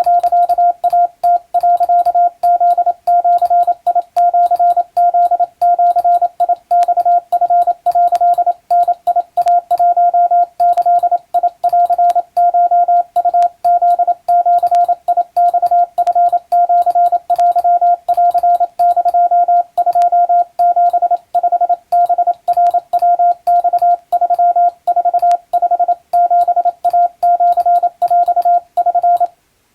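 Wabun (Japanese kana) Morse code sent as a single steady beep tone keyed on and off in a quick, uneven string of dots and dashes, spelling out practice telegram text. The code stops abruptly shortly before the end.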